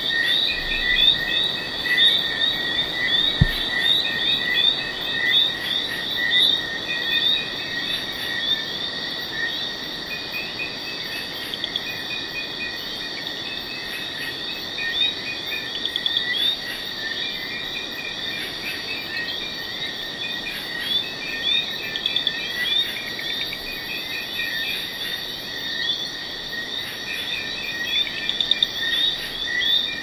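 Busy night rainforest chorus of frogs calling in many overlapping, rapid rising chirps over a steady high insect trill. A single low thump comes about three and a half seconds in.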